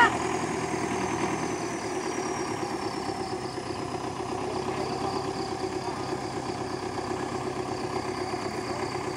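Belarus tractor's diesel engine running at a steady idle, with a faint high whine that slowly falls in pitch.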